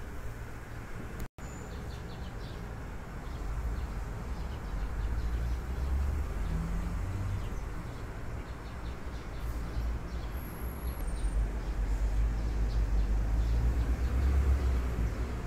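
Sparrows chirping faintly a few times over a steady low outdoor rumble that grows louder in the second half. The sound cuts out for an instant about a second in.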